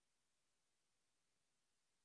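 Near silence: only a faint, steady hiss of the recording's noise floor.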